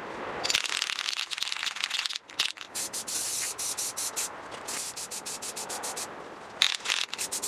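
Aerosol spray paint can hissing in a rapid series of short spurts, paint being sprayed onto a metal band saw cover.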